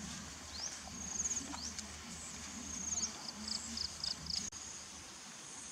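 Insects chirping in short, high, repeated trills, with a few short rising calls mixed in. A string of rapid chirps comes just before an abrupt cut about four and a half seconds in, after which a steady high insect drone carries on.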